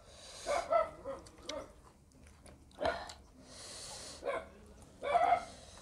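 Close-miked eating sounds: chewing and wet mouth smacks in short, irregular bursts, with a breath drawn in about two-thirds of the way through.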